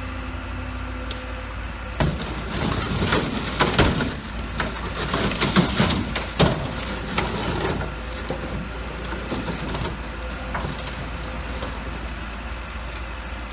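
Cat 316 excavator's diesel engine running steadily while it crushes an underground fuel storage tank. A run of loud, irregular crunching and cracking starts about two seconds in and dies away around eight seconds, leaving the engine alone.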